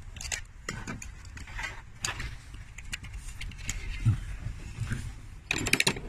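Scattered clicks and light metallic rattles of tools and parts being handled on an open diesel cylinder head, with a quick run of rattling clicks near the end.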